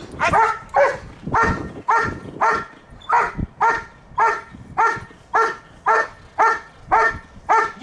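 A dog barking over and over in an even rhythm, about two barks a second.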